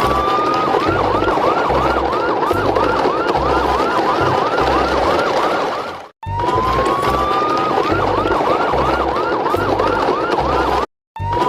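Electronic police-style siren: one short rising wail, then rapid yelps about three a second, over a low thudding pattern. The sequence cuts off about six seconds in and starts over, cutting out again near the end.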